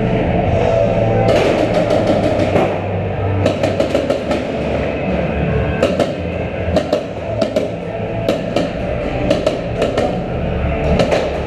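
Rock music with drums and guitar, over which paintball markers fire in rapid, irregular clusters of sharp pops.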